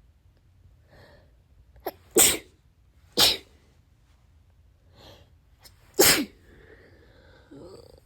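A person sneezing three times in quick succession, loud wet sneezes, with quieter breathy intakes and sniffles between them.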